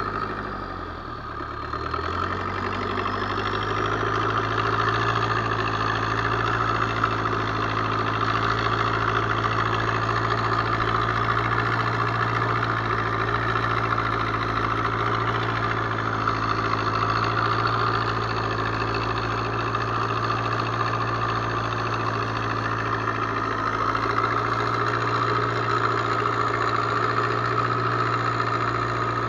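Fishing boat's inboard engine running under way, picking up and getting louder over the first couple of seconds, then holding a steady pitch.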